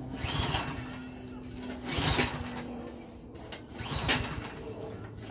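Recoil starter of a Yard Machines snowblower's Powermore 179cc engine being pulled three times, about two seconds apart. Each pull makes a short whirring rush as the engine turns over, and it does not fire.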